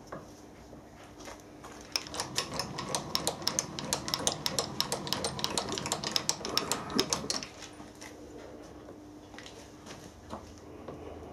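A fast, irregular run of sharp mechanical clicks, several a second, lasting about five seconds, over a faint steady machine hum.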